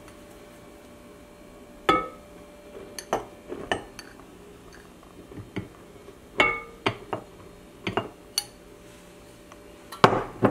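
Glass bowls knocking and clinking as flour is tipped from a glass mixing bowl into a stand mixer's glass bowl: a dozen or so scattered knocks, a few of them ringing briefly.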